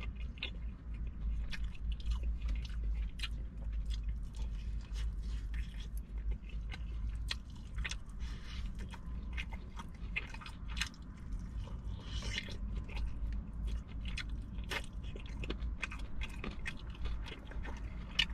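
Close-up chewing and biting of crunchy fried food, with many sharp crackling crunches at an irregular pace. A steady low hum runs underneath.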